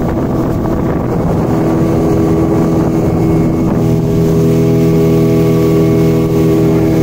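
Motorboat engine running steadily at speed, a constant drone over the rush of water and wind on the microphone; the engine note steadies about a second and a half in and grows slightly louder around four seconds.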